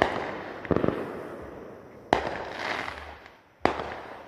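Consumer aerial fireworks going off: three sharp bangs about a second and a half apart, each dying away over a second or so.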